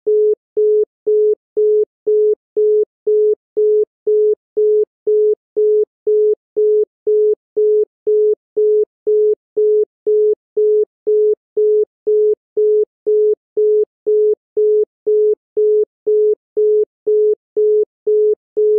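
East German (DDR) telephone busy/congestion tone: a single low tone pulsing on and off about twice a second, each beep longer than the short gap between beeps.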